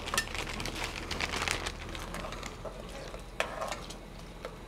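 A metal spoon stirring and scraping in an aluminium pot of hot cocoa tea as milk is poured in, a run of small clinks and a liquid crackle, with a sharper clink about three and a half seconds in.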